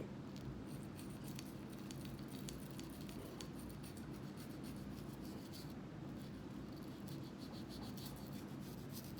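Faint scratching, rubbing and small irregular clicks of hand-cleaning a pistol, over a steady low hum.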